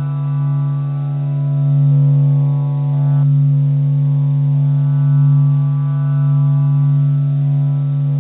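A steady, low electronic drone: one held pitch with a stack of overtones, swelling and easing gently, with a few higher overtones dropping away about three seconds in. It is a meditation drone presented as the sound of the Sun.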